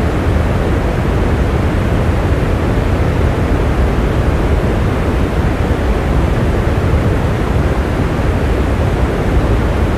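Steady heavy rain: a dense, even wash of noise weighted toward a low rumble, with no single drops standing out.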